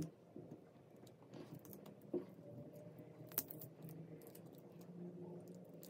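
Faint handling noise of scissors picking and peeling insulating tape off a transformer coil's plastic bobbin, with a couple of sharp ticks about two and three and a half seconds in.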